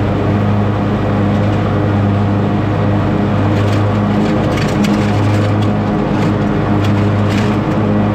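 Small gasoline lawn-equipment engine running steadily at an even, high speed, with a few short ticks or rattles in the second half.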